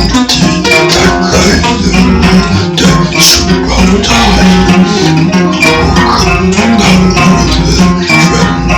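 Dark folk music: plucked guitar over a steady low bass drone, with a shaken rattle keeping time.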